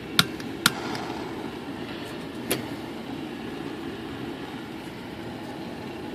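Three sharp clicks of a tool and small part being handled at a workbench, two close together at the start and one more about two and a half seconds in, over a steady low hum.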